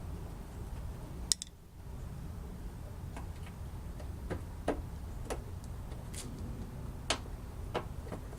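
Sparse, irregular clicks and taps of hand tools working a stubborn fastener on a car's bumper and fender, about eight in all, the sharpest about a second in, over a low steady hum.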